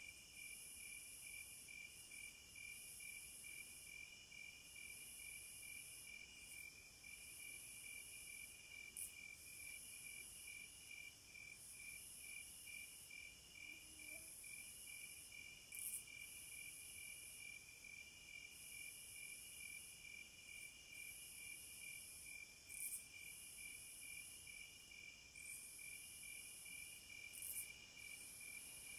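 Faint chorus of insects chirping: a steady, rapidly pulsed chirp with a higher buzz above it that swells on and off every second or two.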